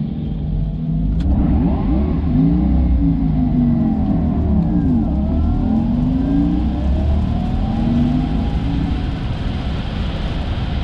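Porsche Taycan Turbo GT's electric drive under full-throttle acceleration on a wet road, heard inside the cabin: a whine whose pitches sweep up and down over a steady rumble of tyres and road. A click about a second in, as the sound grows louder.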